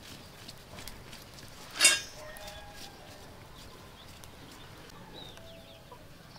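Feathers being plucked by hand from a charred, fire-grilled duck, a faint rustling and picking. A single short, loud animal cry about two seconds in stands out above it, and a few faint bird chirps follow.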